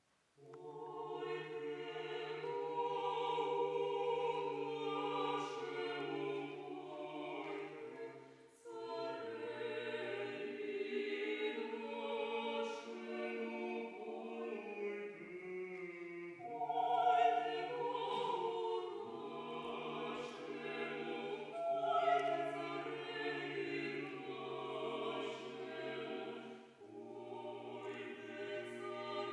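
Mixed chamber choir singing unaccompanied, coming in about half a second in over a held low bass line, with short breaks between phrases about eight seconds in and again near the end.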